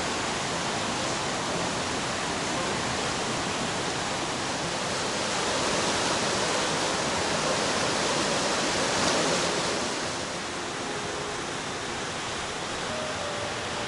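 The Bolshoy Zelenchuk, a powerful mountain river, rushing steadily; a little louder in the middle, easing off about ten seconds in.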